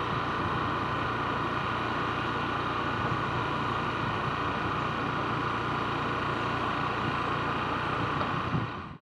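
A vehicle driving steadily along a paved road: even engine hum mixed with road and wind noise, cutting off suddenly at the very end.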